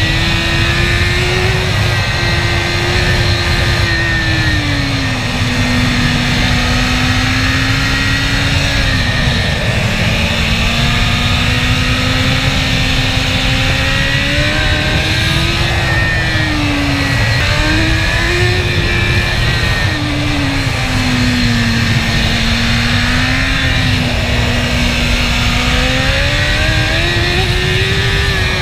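Sport motorcycle engine running under load, its revs rising and falling every few seconds as the throttle is worked, with a steady rush of wind noise underneath.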